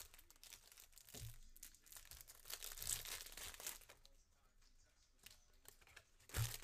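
Foil trading-card pack being torn open and crinkled by hand, then the cards slid out of the wrapper; the crinkling dies down about four seconds in. A single sharp knock near the end.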